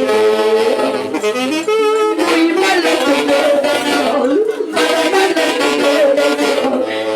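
Orquesta music with saxophones carrying a sustained melody, some held notes wavering with vibrato.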